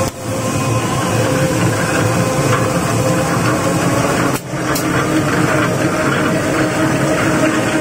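N-fold hand towel paper folding machine running: a steady mechanical din from its belt-driven pulleys and rollers, with a steady hum through it. The sound briefly dips at the very start and again about four and a half seconds in.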